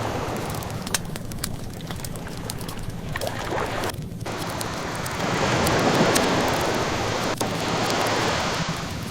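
Ocean waves washing in, one swell building to a peak about six seconds in, mixed with the crackle and occasional sharp pops of a wood fire.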